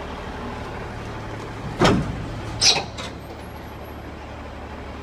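Truck engine running steadily, with two loud, short sharp sounds about a second apart near the middle.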